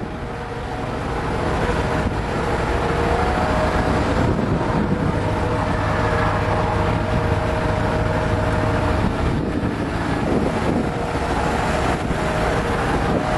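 Steady hum of an idling truck engine, with wind buffeting the microphone.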